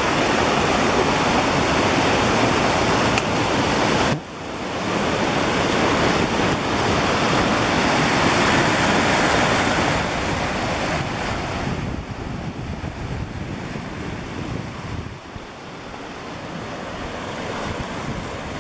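Waterfall rushing over granite rock ledges: a loud, steady rush of white water. It drops briefly about four seconds in and is softer after about twelve seconds.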